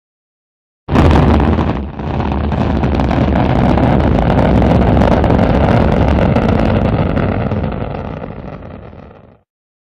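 Rocket engine firing sound effect. It starts suddenly and loudly about a second in, dips briefly, then runs steadily as a deep roar before fading out and stopping near the end.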